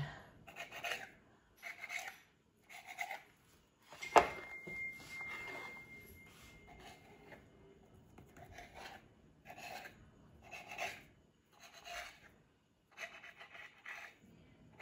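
A kitchen knife cutting slits through crescent-roll dough: a series of short scraping strokes, about one or two a second, as the blade drags down onto the baking pan beneath. About four seconds in the blade knocks sharply against the pan, which rings briefly.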